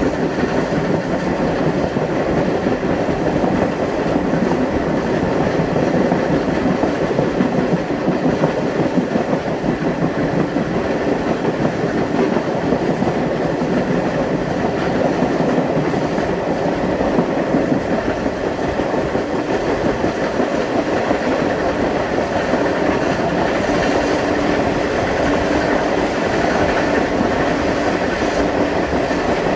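Steam excursion train hauled by Canadian Pacific G5a 4-6-2 No. 1201 running along the track. There is a steady rolling noise of wheels on rail, with the clickety-clack of the rail joints.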